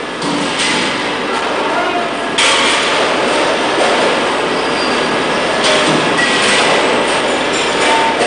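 Loud, steady mechanical noise: a dense hiss and rumble with a few faint whining tones. It gets louder about two and a half seconds in and again near six seconds.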